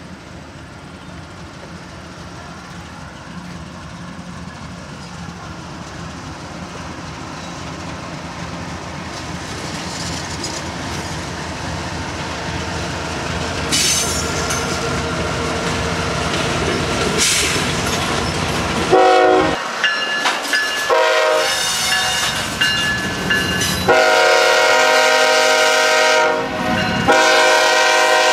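CSX GE ES44AH diesel locomotive approaching with an intermodal train, its engine and wheel noise growing steadily louder. From about two-thirds of the way in, its air horn sounds a series of four blasts, the signal for a grade crossing.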